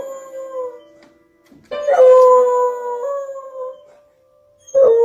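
A dog howling in long, steady notes: one begins about two seconds in and another near the end, each opening with a quick drop in pitch before it holds.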